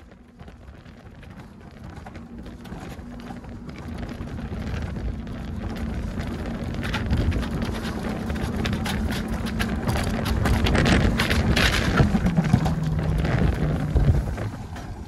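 Alpine mountain coaster sled running fast down its steel rail track: the wheels rumble and hum steadily, growing louder for about ten seconds, with some rattling. Near the end the hum drops lower and the noise falls away.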